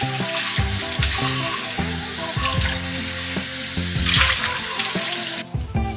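Kitchen tap running into the sink while a glass blender jug is rinsed under the stream, a steady splashing hiss that cuts off suddenly near the end as the tap is shut. Background music plays underneath.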